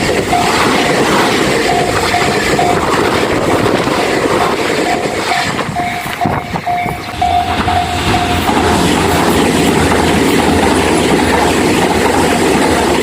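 A train passing over a Japanese level crossing, its wheels clacking over the rail joints, while the crossing's warning bell rings in a steady repeating beat.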